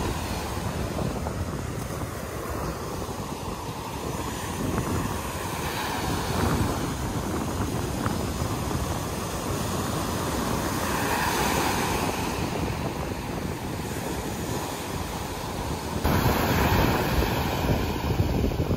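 Surf washing on a beach, with wind buffeting the microphone. The noise swells a couple of times and changes abruptly near the end.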